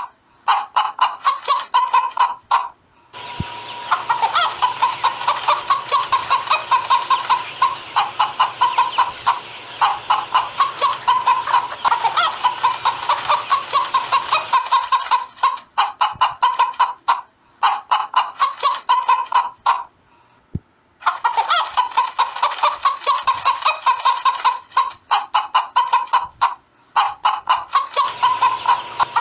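Hens clucking and cackling in a rapid run of short calls, several a second, broken by a few brief pauses.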